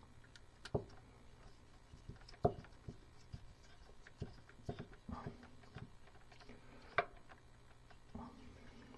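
Scattered small clicks and taps of hand work as wires are connected to a light fixture's screw terminals, the sharpest about two and a half seconds in and again near seven seconds.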